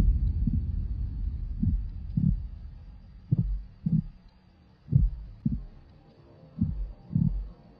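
Slow heartbeat sound effect: low lub-dub thumps in pairs, a pair about every second and a half. A low rumble fades out over the first two seconds.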